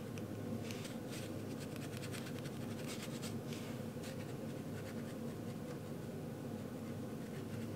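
Watercolor brush stroking across textured watercolor paper: a run of soft, short scratchy strokes over a steady low hum.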